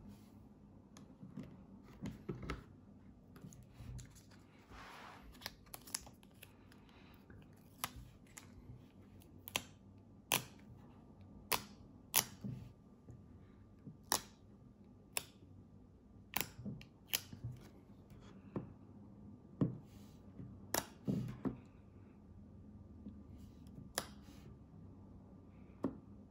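Sharp, irregular clicks and light taps from a phone being handled in a plastic installation frame and a round sticker being dabbed against the glass screen, roughly one click a second, over a faint steady hum.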